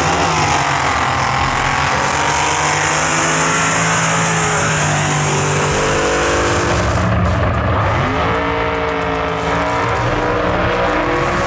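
High-powered racing jet boat engine running at full throttle, its pitch sliding down and back up, then climbing again about eight seconds in.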